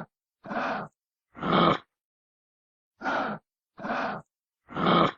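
Kangaroo grunting: two sets of three short, rough, breathy grunts.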